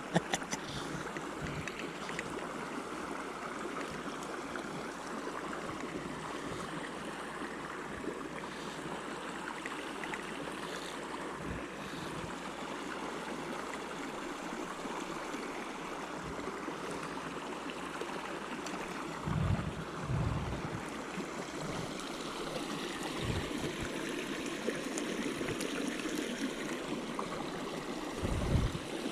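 Creek water rushing steadily over rocks, with a few short low bumps about two-thirds of the way through and again near the end.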